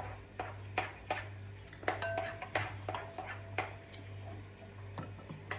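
Spoons and dishes clinking and tapping: a dozen or so light, irregular clicks over a low steady hum.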